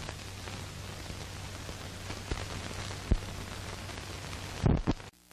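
Hiss and crackle of an old optical film soundtrack over a low hum, with a few sharp pops. The loudest pops come near the end, at the reel change, followed by a brief dropout.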